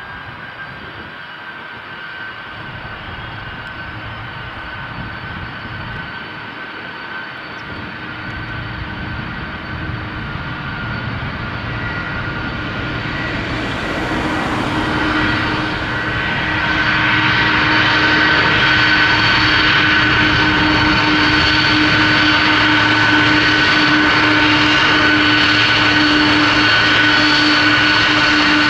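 Jet airliner engines growing steadily louder over the first half, then holding steady and loud, with steady high whine tones over the engine rush.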